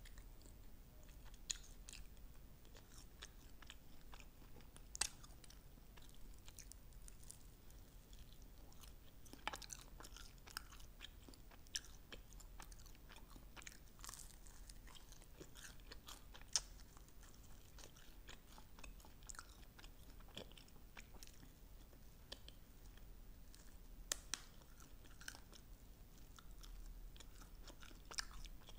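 Chewing and biting sauce-glazed chicken wings, soft and low, with sharp clicks and small crunches at irregular intervals.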